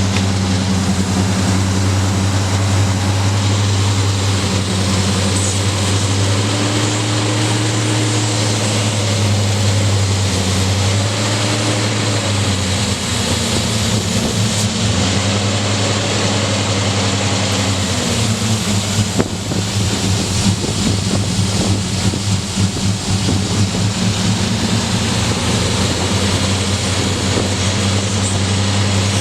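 1999 Ford Ranger engine idling roughly, with a steady hiss of air being sucked in through a large crack in the intake air hose under the throttle body. This vacuum leak upsets the air metering and causes the rough, sputtering idle. A fainter whine slowly rises and falls in pitch.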